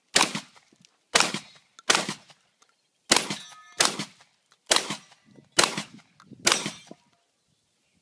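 Shotgun fired eight times at a steady pace, about one shot every second, at a steel spinner target. A little after three seconds in, the steel rings on after a hit.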